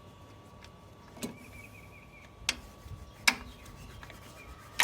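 Four sharp clicks and knocks of spark plug wire boots and tools being handled and pushed into place in a tight engine bay, with a faint squeak about a second in.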